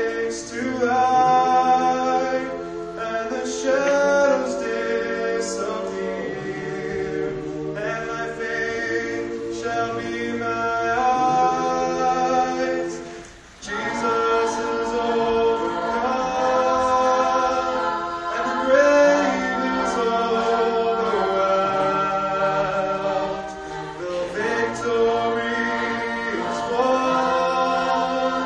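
A mixed group of young male and female voices singing a cappella in close harmony. The singing breaks off briefly about halfway through, then picks up again.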